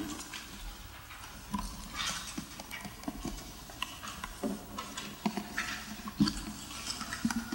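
Quiet stage and hall noise with no music playing: scattered rustles, shuffles and small knocks from the musicians and audience between songs.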